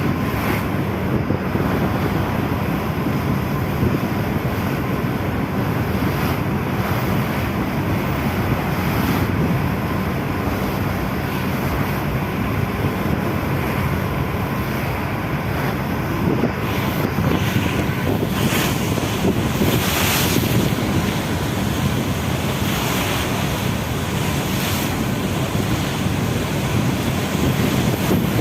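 Strong wind buffeting the microphone over a steady rush of waves and water, with a few louder hissing surges in the second half.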